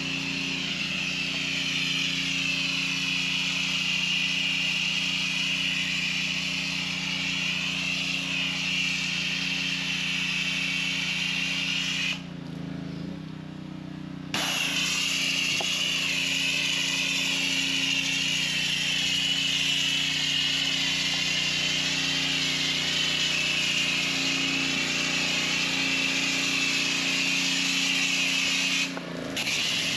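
Pressure washer running and spraying, a steady motor tone under the loud hiss of the water jet; the spray stops for about two seconds about twelve seconds in and again briefly near the end.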